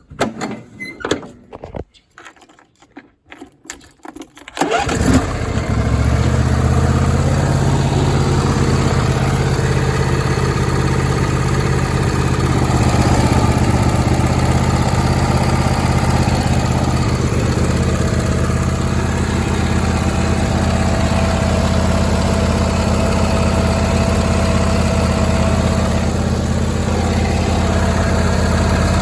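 John Deere D160 lawn tractor's twin-cylinder engine starting about four and a half seconds in, after a few irregular knocks, then running steadily at idle. It starts and runs well after a carburetor cleaning.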